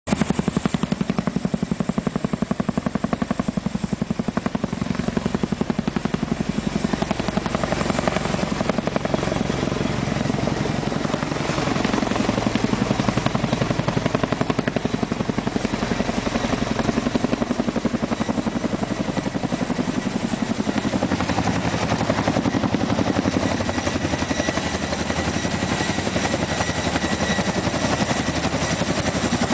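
Boeing CH-47 Chinook tandem-rotor helicopter running, its rotor blades beating in a fast, continuous chop over a steady high turbine whine.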